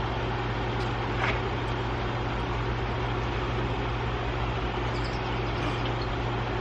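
Ford 6.0 L Powerstroke V8 turbodiesel idling steadily with a constant low hum.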